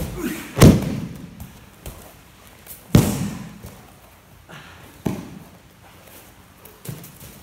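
Bodies thumping onto aikido practice mats as partners are thrown and fall, several separate heavy thuds about two seconds apart, the loudest about half a second in, with lighter knocks between.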